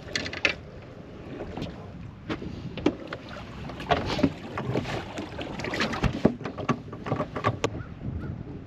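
Irregular knocks, thumps and clatter of a person moving about a fibreglass bass boat's deck while handling a freshly landed smallmouth bass, over a steady wash of wind on the microphone and water against the hull.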